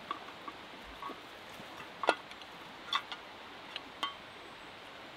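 Hands rummaging in a leather tinder bag and pulling out dry cedar bark tinder: a handful of sharp, short crackles and clicks, the loudest about two seconds in, over a steady low hiss.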